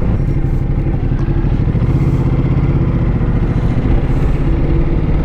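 Motorcycle engine running steadily while riding, heard from the bike at a constant pitch.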